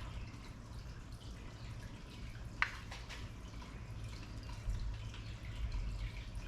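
Light scattered clicks and taps of a hard plastic board being handled and set against a kayak hull, with one sharper click about two and a half seconds in, over a low steady hum.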